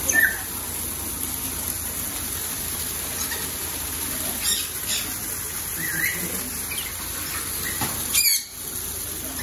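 Small birds giving a few short squeaky chirps, several seconds apart, over a steady hiss, with a few brief knocks or flutters, the loudest about eight seconds in.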